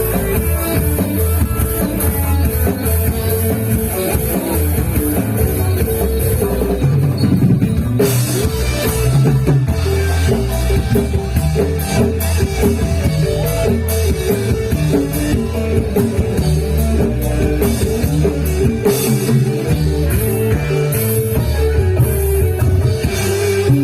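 Live gamelan music accompanying a jathilan dance: drums keep a steady rhythm under sustained metallophone notes. Brighter, clashing percussion joins about eight seconds in.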